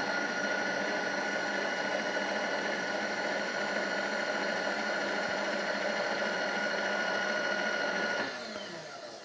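Milling machine table power feed running steadily with a whine as it traverses the table, then slowing and stopping with a falling pitch about eight seconds in.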